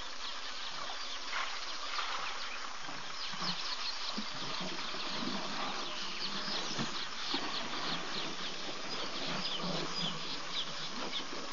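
Steady bush ambience of insects buzzing and many quick, high chirps, with birds calling among them.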